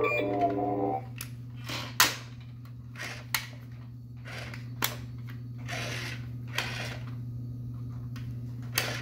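Droid Depot R-series toy droid chirping electronic beeps for about the first second, then a string of sharp plastic clicks and short scrapes as its body panels are handled, the loudest click about two seconds in, over a steady low hum.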